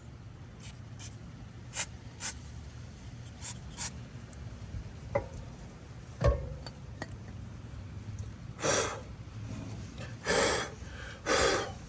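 Aerosol brake cleaner sprayed in three short hissing bursts in the last few seconds, after a few light clicks and a knock of parts being handled.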